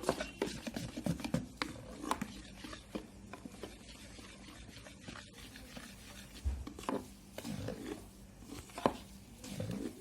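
Thick corn-flour cake batter being folded by hand in a bowl, stirred in one direction: soft scraping with scattered light knocks of the utensil against the bowl.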